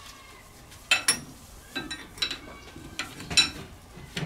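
A wrench clinking against the steel and brass fittings of a steam engine's low-pressure crosshead while the jam nut on the wrist pin bearing is worked. About six sharp metallic clinks, each with a short ring, the loudest near the end.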